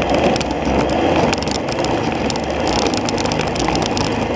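Longboard wheels rolling fast over asphalt: a steady rolling rumble with many small ticks from the grain of the pavement.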